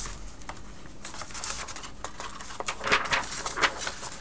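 Soft handling noises at a desk: scattered light clicks and rustles, busier about three seconds in, as the next scripture passage is looked up.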